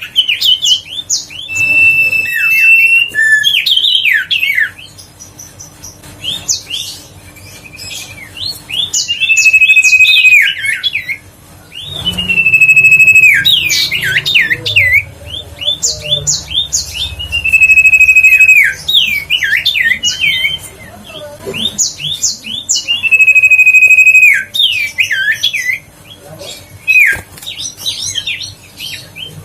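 Common iora singing: a long level whistle that drops at its end, followed by a quick jumble of sharp chirps. The phrase repeats every few seconds.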